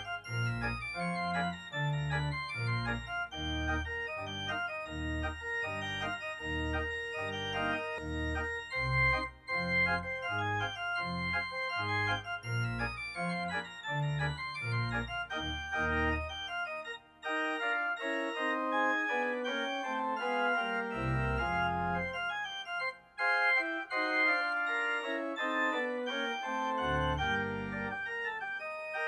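Organ music: sustained chords over a moving bass line, with quick running figures up high, and the bass dropping out about halfway through and returning briefly twice later.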